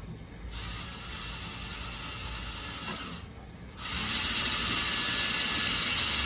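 Cordless drill running against a wall in two runs: one from about half a second in to about three seconds, a brief pause, then a louder, longer run starting near four seconds.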